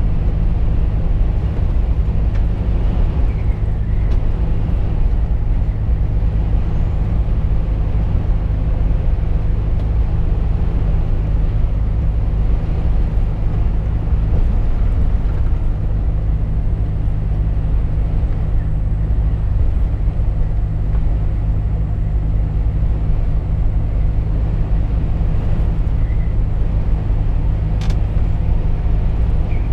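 Volvo FH 460 truck heard from inside the cab while cruising: its 13-litre straight-six diesel drones steadily under road and tyre noise. A brief sharp click near the end.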